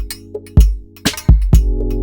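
Hip-hop beat playing back from a Native Instruments Maschine: deep, booming electronic kick drum hits with snappy drum-machine percussion and hi-hat ticks over sustained synth chords.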